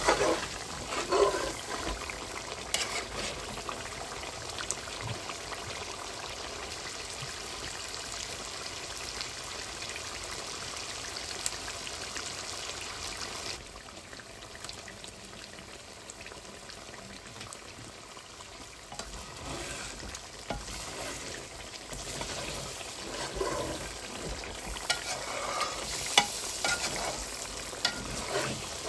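Food sizzling as it fries in a pan, with occasional clicks and scrapes of a utensil. It goes quieter for a few seconds about halfway through, then livelier again near the end.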